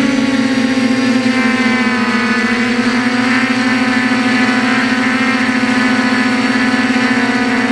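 DJI F450 quadcopter's 2212 920 kV brushless motors and propellers buzzing steadily in flight, heard close up from a camera on the frame. The pitch dips slightly about two seconds in, then holds steady.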